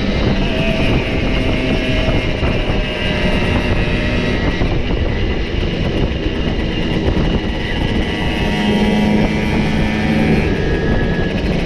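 Several Simson 50 cc single-cylinder two-stroke moped engines running together on a ride, at different pitches that shift up and down.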